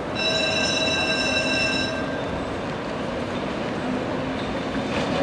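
Tram wheels squealing on curved track: a high, steady whine of several tones for about two seconds that then stops, over the rumble of the tram rolling on the rails. A short knock comes near the end.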